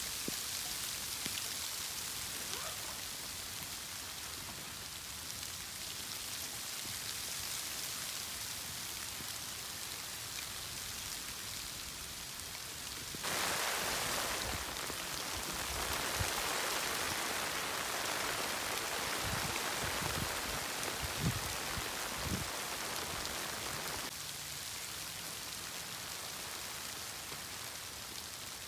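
Steady hiss and patter of falling precipitation on a surface. About halfway through it turns louder and fuller for some ten seconds, with a few low thuds, then settles back.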